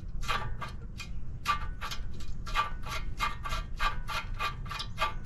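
Ratchet wrench clicking in quick, even strokes, about three to four clicks a second, as the nut on a car's outer tie rod end is backed off its stud.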